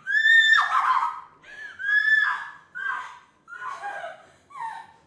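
A woman's high-pitched vocal cries in a shrieking, laugh-like run of five. The first two are loudest and longest. The last three are shorter, lower and fainter.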